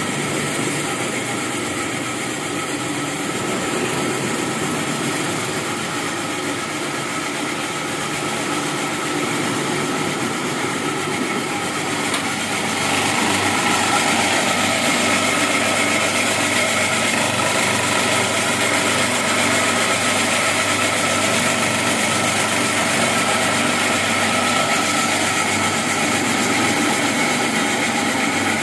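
Home-built foam-cutting machine running steadily, its motor and blade drive giving a continuous mechanical hum with several steady tones. It gets louder and brighter about 13 seconds in and holds there.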